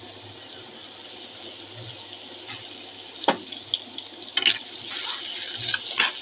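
Chopped onions and green chillies sizzling in hot oil in a kadai, a steady hiss. A few sharp clicks of a spatula against the pan come from about three seconds in, growing busier near the end as stirring begins.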